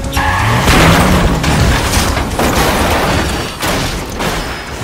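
Movie sound effects of a car crash: several heavy booming impacts with crunching debris, dying away near the end.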